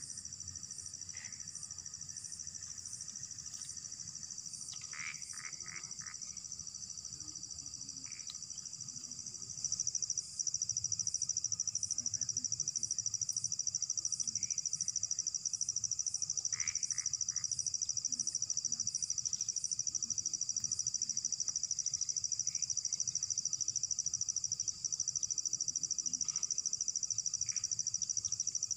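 Night insects calling in a continuous high-pitched trill that gets louder about ten seconds in, with a slower, regular chirp repeating above it. A few faint short rustles and clicks sound close by.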